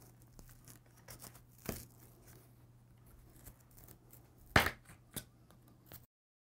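Metal staples being pried out of a corrugated cardboard box with a screwdriver and pliers: scattered scraping clicks and snaps of metal on cardboard, the loudest about four and a half seconds in. The sound cuts off abruptly near the end.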